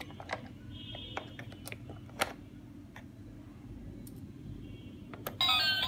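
Scattered light clicks and taps of a small plastic toy bus being handled, over a low steady hum. Music starts abruptly near the end.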